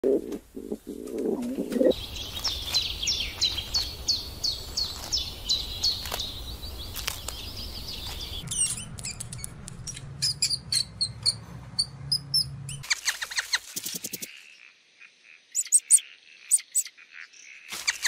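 A string of short animal sound clips. First comes low pigeon cooing with wing flaps. Then a run of quick high bird chirps, about three a second. About halfway in, a different run of high squeaks, then scattered clicks near the end.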